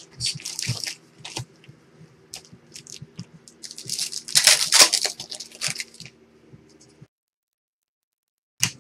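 Trading cards and card packs being handled: crinkling, rustling and short clicks, with the loudest crinkling rustle about four to five seconds in. The sound drops out to dead silence for about a second and a half near the end, then one click follows.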